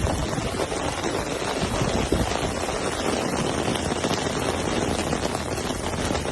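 Steady rushing noise of flash-flood water, with wind buffeting the microphone.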